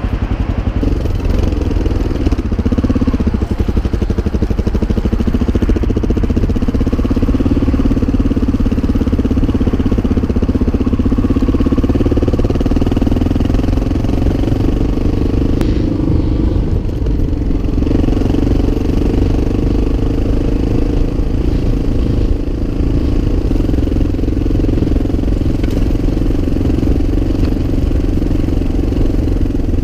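Enduro motorcycle engine running steadily under way on a dirt track, with a brief ease-off about halfway through.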